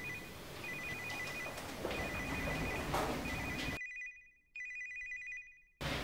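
Android smartphone ringing with an incoming call: a trilling two-tone electronic ringtone, repeated in bursts about a second long with short gaps.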